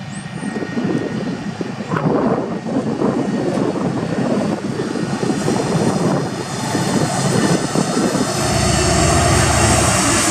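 EMD SD70ACe diesel-electric locomotive approaching and growing louder. About eight seconds in, the deep steady rumble of its 16-cylinder two-stroke diesel engine takes over as it passes close by.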